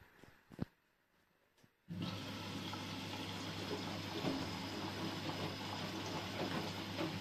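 Siemens WM14N2L3 front-loading washing machine: after a couple of faint clicks, water starts rushing in steadily about two seconds in, with a low hum, while the drum turns the wet laundry.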